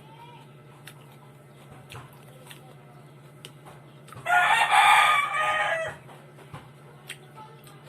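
A rooster crows once, about halfway through, a single call of nearly two seconds that trails off at the end. A few faint clicks and a steady low hum sit beneath it.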